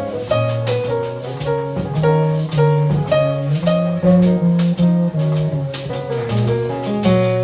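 Instrumental jazz music: a walking bass line under plucked guitar-like melody notes, with drum-kit strokes keeping the beat.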